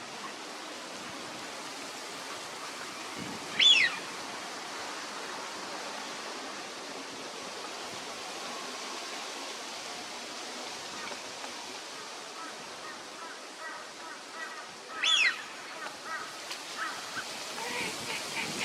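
Eurasian wigeon drakes giving their whistled "whee-oo" call twice, a loud whistle falling in pitch, the second about eleven seconds after the first, over a steady hiss. Softer short calls come in during the second half.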